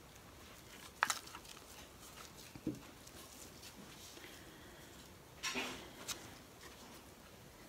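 Faint handling sounds of a plastic paint cup and wooden craft stick being put down on the work table: a sharp click about a second in, then a soft knock, then a short cluster of rustles and clicks past the five-second mark.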